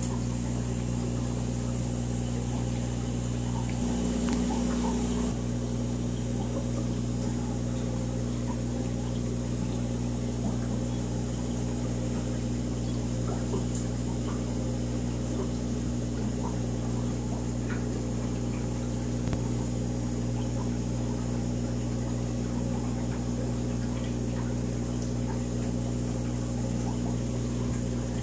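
Steady electric hum of aquarium equipment with faint bubbling water and small scattered clicks, getting briefly a little louder about four seconds in.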